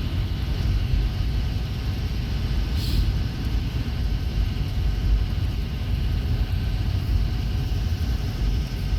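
Steady engine hum and low road rumble heard from inside a moving vehicle's cab, with a short hiss about three seconds in.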